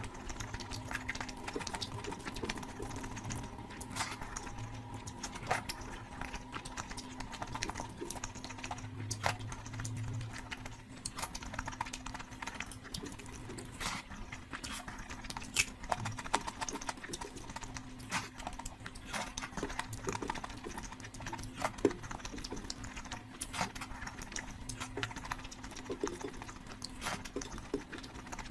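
Close-miked eating sounds: irregular wet clicks and smacks of chewing rice and curry, over a steady low hum.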